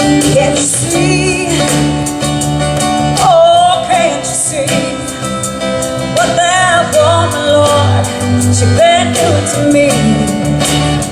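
Live music: a woman singing a country-rock song into a handheld microphone, with a wavering vibrato on held notes, backed by acoustic guitar and a steady beat.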